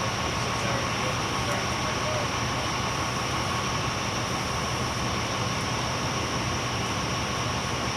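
A vehicle engine running steadily at idle, a continuous hum with a thin steady high tone over it.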